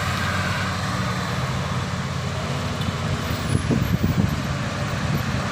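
Heavy truck diesel engine running under load on a climb, a steady low drone over road and traffic noise, swelling a little about three and a half seconds in.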